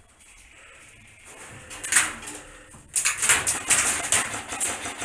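Airsoft gunfire inside a corrugated-steel shipping container: quiet at first, a single sharp knock near two seconds, then from about three seconds in a dense, loud run of rapid cracks and metallic clatter.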